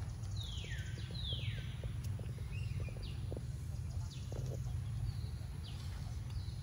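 A bird calling with a series of falling whistles: two long ones in the first two seconds, then several shorter ones, over a steady low rumble.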